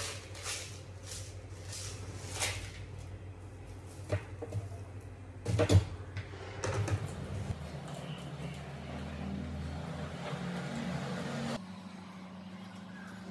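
Salt shaken from a glass jar into idli batter in a steel vessel, a few loud knocks about halfway, then a hand mixing the thick batter with a steady churning that stops abruptly near the end. A low hum runs underneath.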